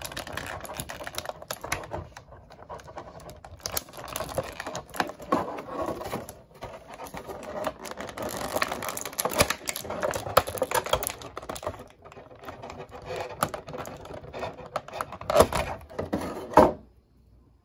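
Small plastic Mega Construx minifigure and its parts being handled: rapid, irregular clicking and rustling, with two louder clicks near the end before it stops abruptly.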